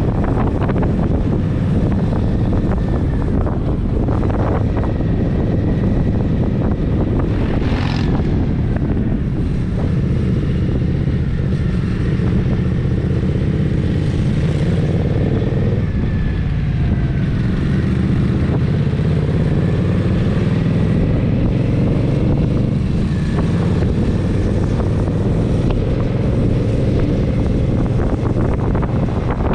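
Indian Scout Sixty's V-twin engine running under way, its pitch rising and falling with the throttle.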